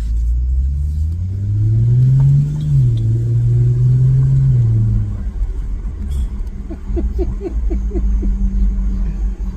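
Lexus GS350's V6, heard from inside the cabin through a newly fitted axle-back exhaust, pulling away under light throttle. The engine note climbs, steps down at a gearshift, holds, then falls away about five seconds in as the throttle is lifted, leaving a low steady hum.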